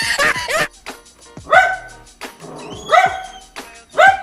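A dog barking: three single barks, about a second to a second and a half apart.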